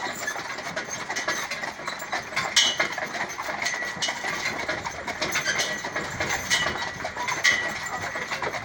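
Horse-drawn carriage rolling along a dirt lane behind a walking two-horse team of a Haflinger and an Appaloosa: a steady rattle and clatter of the wheels and carriage, with hoofbeats and brief high clinks every second or two.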